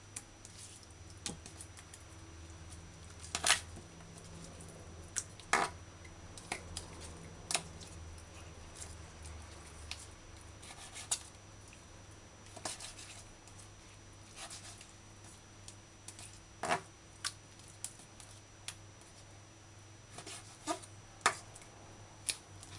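Knife cutting raw chicken into chunks on a plastic cutting board: scattered sharp taps and clicks of the blade meeting the board, a second or more apart, over a low steady hum.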